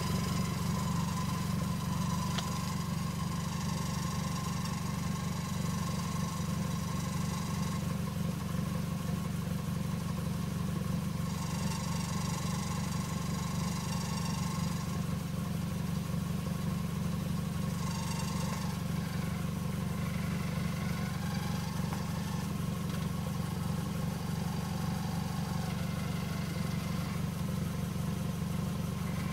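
Scion tC's four-cylinder engine idling steadily, with a ticking, vibrating noise from the exhaust.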